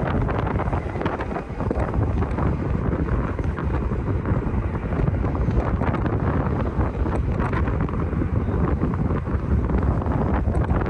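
Wind buffeting the phone's microphone: a continuous, unsteady low rumble.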